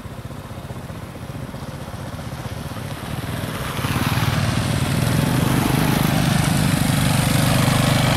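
Small motorcycle engine running, then getting clearly louder about four seconds in as the bike gets under way, with a rush of wind and dirt-road noise over it.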